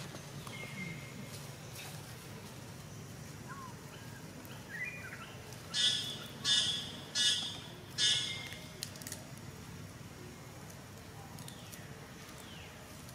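An animal gives four loud calls in quick succession, a bit under a second apart, a little past the middle. Faint short bird chirps come and go in the background.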